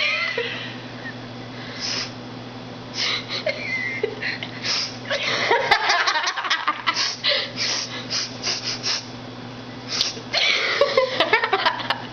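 Repeated quick, breathy sniffs and snorts mixed with giggling, over a steady low electrical hum.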